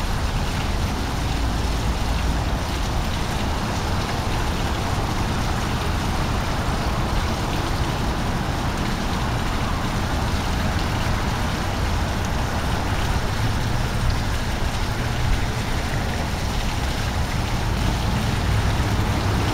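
Running water of a tiered fountain: a steady splashing wash as water spills from the upper bowl into the basin, with a low rumble underneath.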